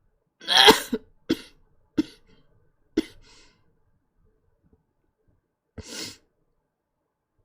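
A woman coughing in a fit: one long, loud cough about half a second in, then three short sharp coughs about a second apart, and one more cough near the end.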